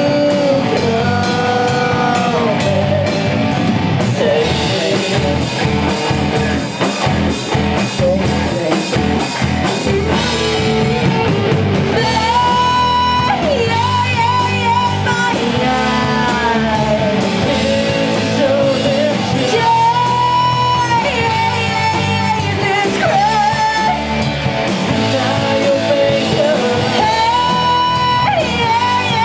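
Live rock band playing: a woman sings lead over distorted electric guitars and a drum kit, holding several long notes.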